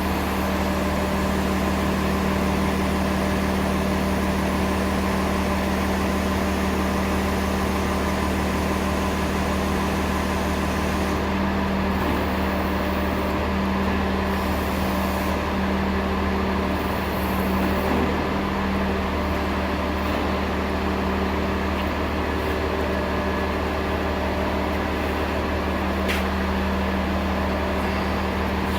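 Engine running steadily with a constant hum and no change in speed, with a single sharp click near the end.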